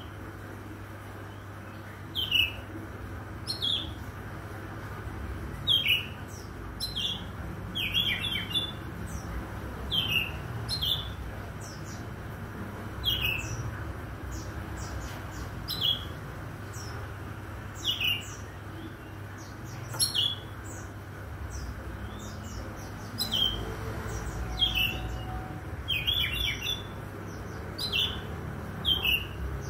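Oriental magpie-robin (kacer) calling: short down-slurred notes repeated every second or two, now and then a quick run of several notes together, over a steady low hum.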